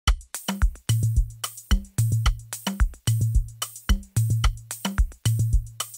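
Programmed drum loop playing back: sharp percussion and hi-hat hits about four times a second over a kick with a low, held bass boom, the drum bus smashed with parallel compression for a heavy, hard-hitting sound.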